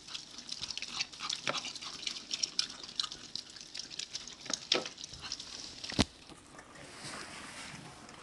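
Dogs eating wet dog food: a quick, irregular run of wet licking and chewing clicks, with one sharper click about six seconds in.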